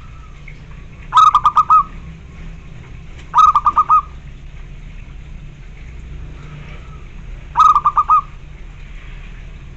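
Zebra dove (perkutut) cooing: three short phrases, each a sharp click followed by a quick run of about five rolling notes.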